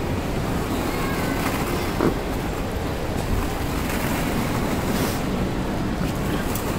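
Steady low rumbling noise with one brief knock about two seconds in.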